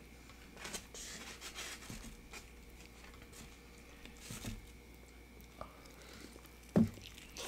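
Soft rustling and handling of corn-tortilla tacos with light clicks, then biting and chewing, with a single dull thump near the end.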